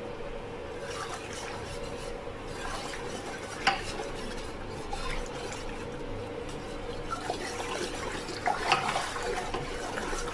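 Wire whisk stirring a thin gram-flour and yogurt batter in an aluminium pot, the liquid swishing steadily, with a sharp clink of the whisk against the pot about a third of the way in and a few lighter clinks near the end. A faint steady hum runs underneath.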